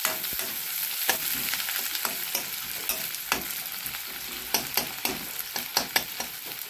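Sliced onions and green chilli sizzling in hot oil in a kadai, with a metal ladle scraping and clinking against the pan as they are stirred. The sharp clinks come more often in the second half.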